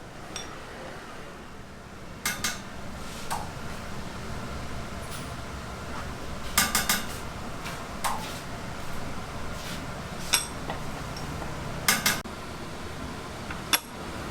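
Metal chopsticks clinking against the work surface as paired strips of youtiao dough are pressed together. The sharp, short clinks come at irregular intervals over a steady low hum.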